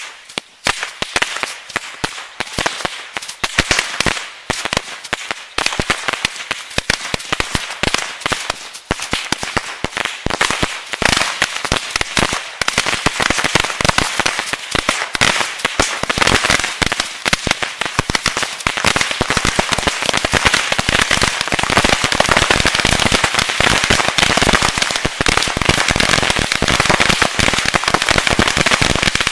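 A mass of bottle rockets launching and popping in rapid succession. It starts as quick scattered pops and thickens into a dense, continuous crackle that grows louder toward the end.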